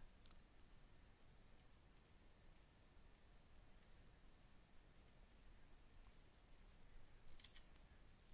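Near silence with faint, scattered computer mouse clicks, about a dozen, bunched a little near the end.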